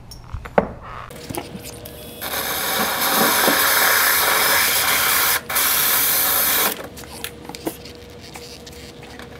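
DeWalt cordless drill boring a hole through stacked quartz stone: a loud, steady grinding that starts about two seconds in, breaks off for an instant partway through, and stops after about four and a half seconds.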